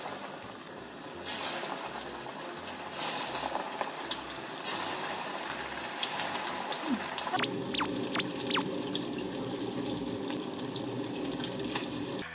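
Starch-coated chicken pieces deep-frying in hot oil: a steady sizzle that flares louder each time a piece is dropped in, three times in the first five seconds.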